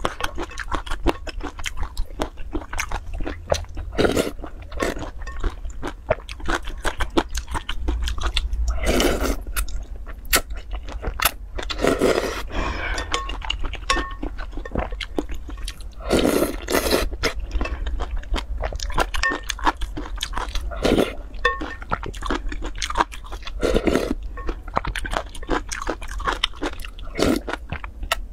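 Close-up eating sounds of a person eating noodle soup: wet chewing clicks throughout, broken by several longer slurps of noodles and broth.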